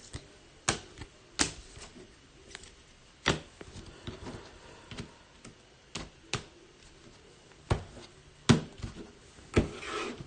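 Trading cards being handled and set down on a table during sorting: about ten sharp, irregular taps and clicks with quiet between them.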